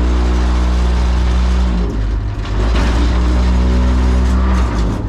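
Heavy engine running steadily at a constant speed, with a strong low hum. Its pitch shifts slightly about two seconds in and again near the end.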